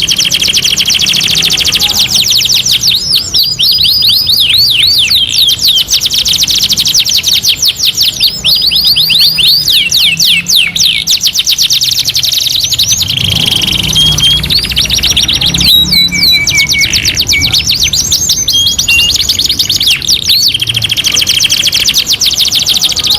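Domestic canary song: fast rolling trills of rapidly repeated down-slurred notes, broken in the middle by a few short held whistles before the rapid trills resume.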